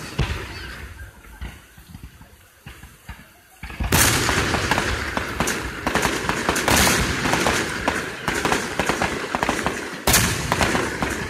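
Aerial fireworks exploding: a single bang, a lull, then from about four seconds in a dense run of overlapping booms and crackles, with another loud burst about ten seconds in.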